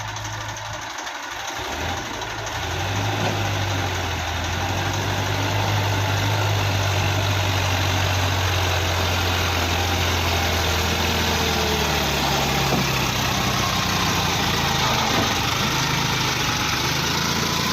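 Heavy diesel machine engine running. It comes up in level about two seconds in, holds a steady low drone, and its pitch wavers over the last few seconds.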